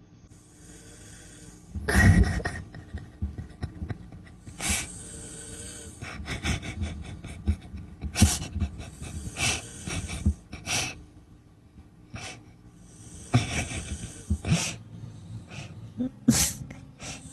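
A person snoring: irregular snorting breaths every one to three seconds, the loudest about two seconds in.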